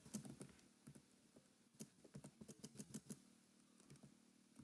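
Faint computer keyboard typing: irregular keystroke clicks, sparse at first and then a quicker run of them in the middle.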